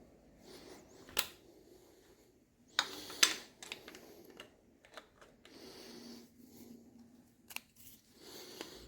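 Scattered light clicks and knocks of metal engine parts and hand tools being handled, with sharper clicks about a second in and around three seconds.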